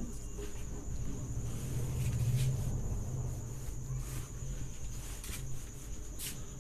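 A marker pen writing on a whiteboard in a few faint strokes, over a steady low hum and a constant high-pitched whine.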